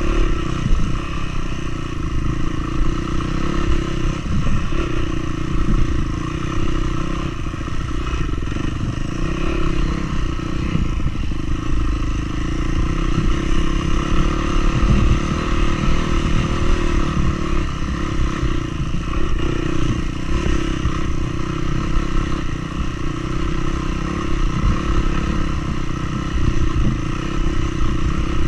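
Vehicle engine running steadily with a continuous rattling clatter.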